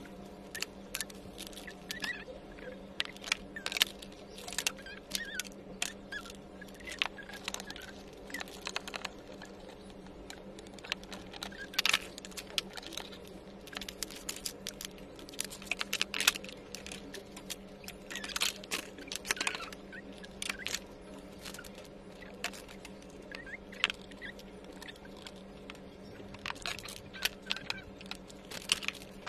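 Irregular small clicks, taps and knocks of toy-kitchen parts being handled during assembly: white panels lifted and set down, small fittings shifted. A steady low hum runs underneath.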